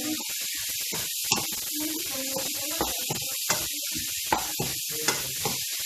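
Chopped ginger, onions, garlic and chili sizzling in hot oil in a frying pan while being stirred, with sharp knocks of the stirring utensil against the pan about once a second.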